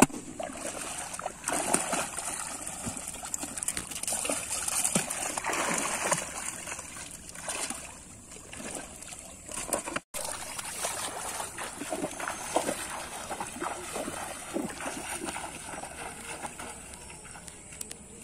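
Shallow water splashing and sloshing around legs wading through a flooded rice paddy, in irregular splashes.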